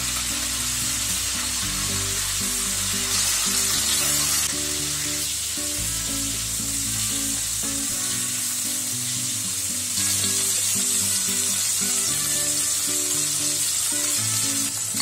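Marinated chicken pieces sizzling loudly in oil in a nonstick pan as the marinade cooks down and the chicken browns. The sizzle swells briefly about three seconds in and again near the end. Background music plays underneath.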